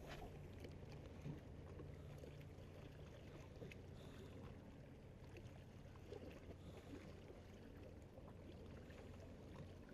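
Near silence on a fishing boat: a faint, steady low hum with light water sounds and a few faint ticks.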